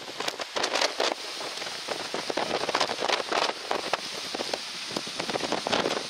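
Strong, gusty wind buffeting the camera's microphone: a steady rush broken by irregular crackles and gusts.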